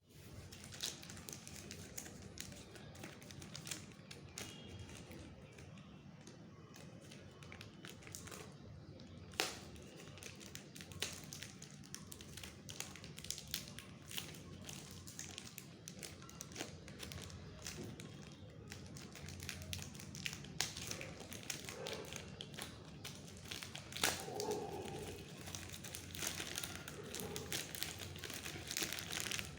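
Handling noise from opening a credit card mailer: scattered taps and clicks with paper and packaging crinkling, busier in the second half.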